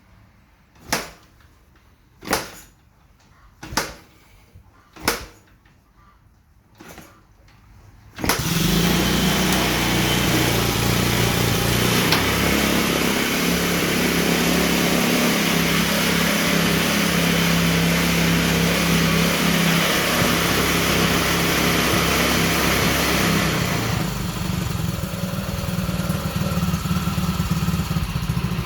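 A series of sharp knocks, about one every second and a half, then about eight seconds in a home-built off-road kart's small engine starts and runs steadily, easing off a little near the end.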